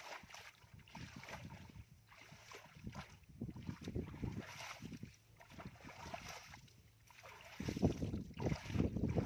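Wind buffeting the microphone in uneven gusts, heavier near the end, over a light rustle of bare feet moving through wet grass.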